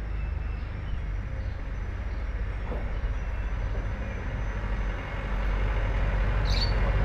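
Steady low rumble that grows louder about five seconds in, with one short high chirp near the end.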